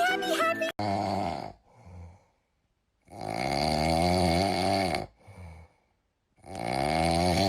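Snoring: long raspy snores, each followed by a short softer breath out, repeating about every three seconds.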